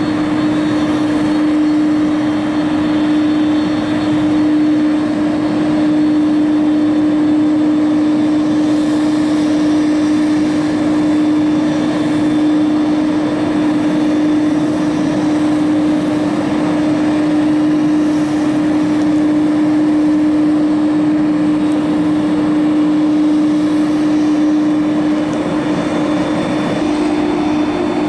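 Aircraft engine running steadily: a loud constant hum over a broad rush of noise, shifting slightly in pitch near the end.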